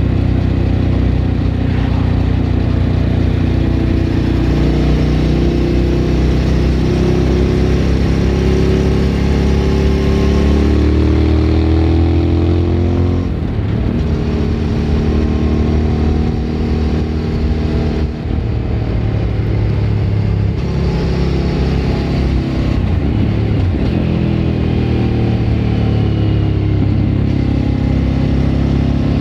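Suzuki V-Strom 1000 V-twin through an aftermarket Remus exhaust, heard from on board. The engine pulls with rising pitch for about the first half, drops sharply, holds, then falls off and climbs again near the end.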